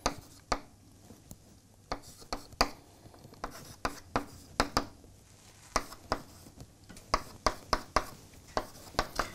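Chalk writing on a blackboard: irregular sharp taps and short scratches as each stroke is made, about two or three a second.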